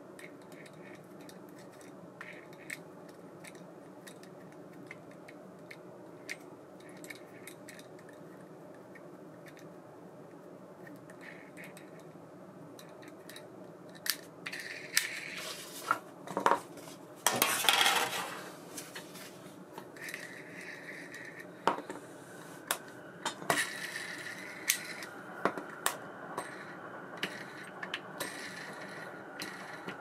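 Small metal clicks and clinks as a baitcasting reel and its parts are handled and taken apart, sparse at first and more frequent in the second half, with a short rustle a little past the middle. A steady low hum runs underneath.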